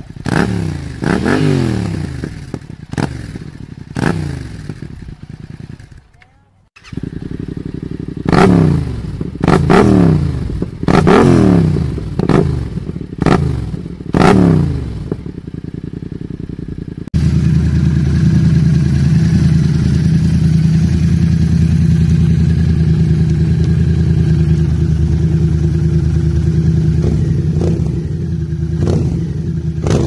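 Yamaha MT-07 689 cc 270° crank parallel-twin engines on aftermarket exhausts, idling and being blipped in a series of quick, sharp revs that rise and fall back. After a cut about 17 s in, the engine runs steadily at a fixed speed.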